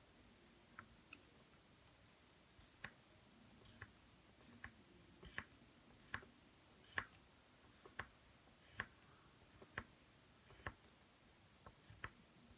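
Pen tip striking paper on a wooden table with each short stroke: sharp faint clicks about once a second over near silence.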